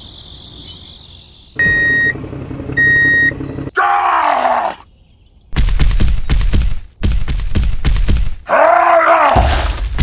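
Dubbed sound effects: two short beeps over a low rumble, then a groaning cry that rises and falls in pitch. Loud rumbling noise and a second groaning cry follow.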